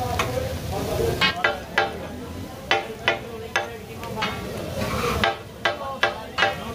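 Metal spatulas striking and scraping on a large iron tawa as chicken is stirred and chopped: about ten sharp ringing clangs at uneven intervals, over the sizzle of frying.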